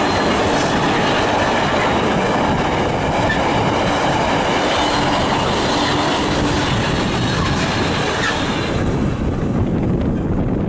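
Container freight train's wagons rolling past, wheels running steadily on the rails. The noise thins near the end as the last wagons go by.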